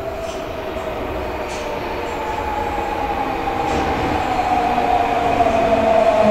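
Osaka Municipal Subway 21 series electric train pulling into an underground station platform, getting steadily louder as it nears. A whine slowly falls in pitch as the train brakes.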